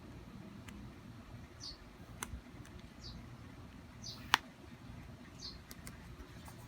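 Scattered sharp clicks and taps, the loudest a little past four seconds in, over a low steady hum. A short, high, falling chirp repeats about every second and a half.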